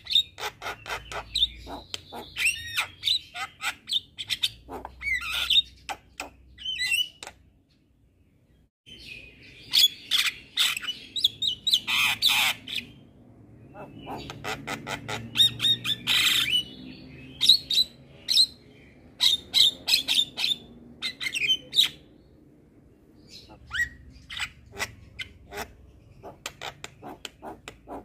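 Javan myna (jalak kebo) song: fast clicking chatter and harsh squawks mixed with whistled notes, with a short pause about eight seconds in.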